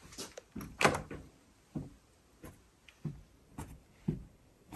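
A door's brass knob turning and the latch clicking as the door is pushed open, one sharp click-thunk under a second in. Then a run of soft, evenly spaced thuds, about two a second.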